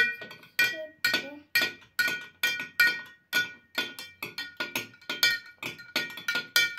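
Metal teaspoon stirring salt into water in a glass jar, clinking against the glass a little over twice a second, each strike leaving a short glassy ring.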